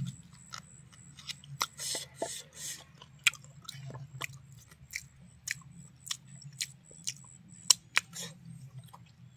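A person chewing a mouthful of buffalo meat with the mouth open: many short, irregular wet clicks and smacks.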